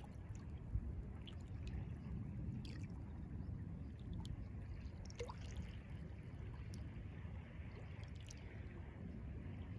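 Gentle wavelets of calm sea water lapping and sloshing, with a steady low wash and scattered small splashes and drips.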